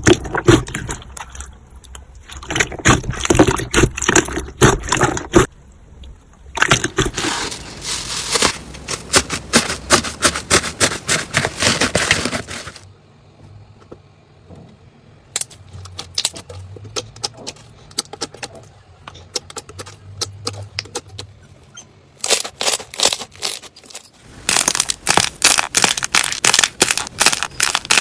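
Slime being pressed, squeezed and poked by hand, giving rapid crackling and popping clicks; a quieter stretch of sparser, softer pops lies in the middle.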